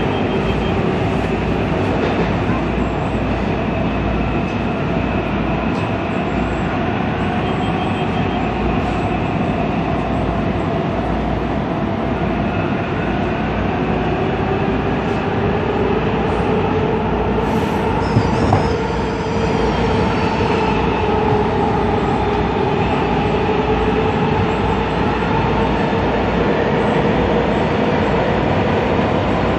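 Breda/Alstom-rehabbed WMATA Metro railcar running through a tunnel, heard inside the car: a steady rumble of wheels on rail and a traction-motor whine that slowly drifts in pitch. A little past halfway there is a click and a brief high squeal.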